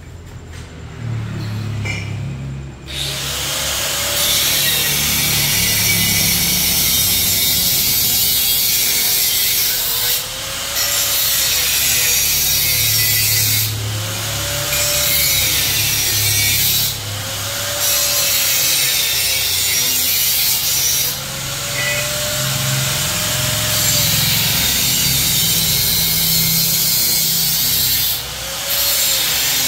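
A power tool cutting through metal under the car, starting about three seconds in. It runs in long passes of a few seconds each with brief pauses, and its whine dips and recovers over and over as it bites.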